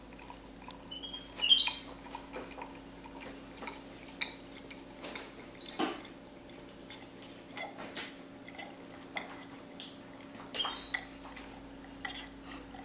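Capuchin monkey drinking water from a glass: a few short slurping sips, with small clicks and taps of the glass against its mouth and hands in between.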